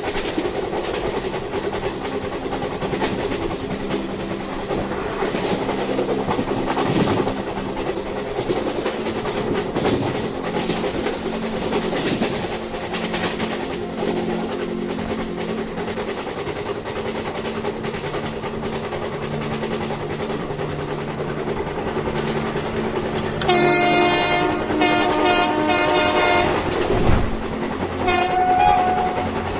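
Train running on the line, a steady rumble with wheel noise on the rails. Near the end the horn sounds in a few blasts over about three seconds, then briefly once more.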